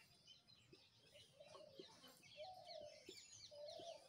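Faint chirping of small birds: many quick, high, downward chirps throughout, with a few short lower notes.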